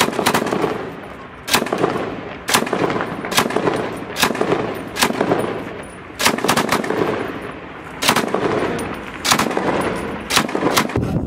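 Belt-fed PK-type machine gun firing single shots and short bursts, roughly once a second, each report followed by a long echo off the surrounding buildings.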